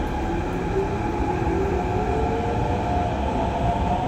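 Kawasaki-CRRC Qingdao Sifang CT251 metro train heard from inside the car as it runs through a tunnel: a steady rumble of wheels on rail, with a whine that rises slowly in pitch as the train accelerates.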